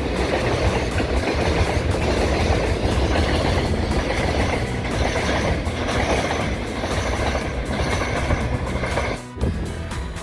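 Freight train running past, a steady loud rumble of wheels and wagons on the rails, broken off by a brief drop near the end.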